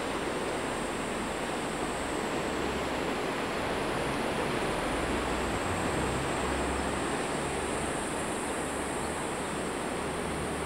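Steady rushing of surf washing over the rocks below the cliffs, mixed with wind, with no distinct waves or other events standing out.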